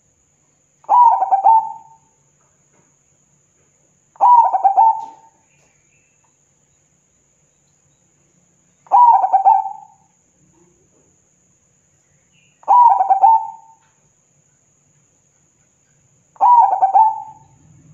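Zebra dove (perkutut) cooing: five song phrases a few seconds apart, each about a second long, opening with a quick stutter of short notes and running into a rolling coo.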